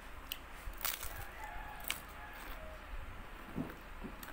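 A rooster crowing once, about a second in, with a couple of sharp clicks of a fork on a plate.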